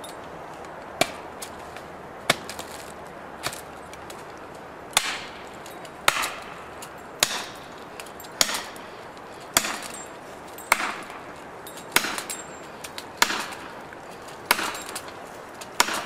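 Felling wedge being hammered into the back cut of a large tree: sharp, evenly spaced blows about every second and a bit, about thirteen in all, growing louder about a third of the way in. The wedge is being driven to tip the tree over.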